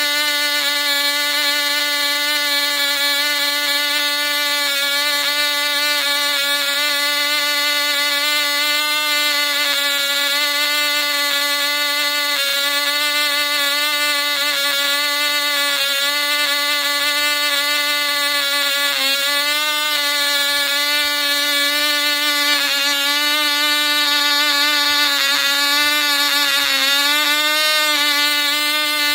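Cox Teedee .049 glow engine running flat out at about 19,500 rpm, swinging a 5x3 APC propeller: a steady, high-pitched engine note that wavers briefly twice, around the middle and near the end.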